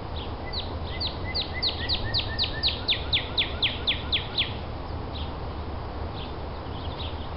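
A bird singing: a quick run of about fifteen sharp down-slurred notes, about four a second over some four seconds, loudest in the middle of the run, over a steady low background rumble.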